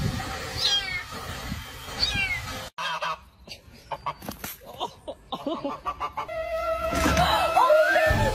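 A kitten mewing twice in high falling cries, then, after a cut, a goose honking. Near the end a louder, wavering pitched sound comes in.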